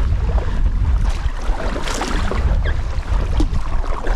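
Wind buffeting the microphone in a heavy low rumble, with choppy lake water lapping and splashing against an inflatable packraft.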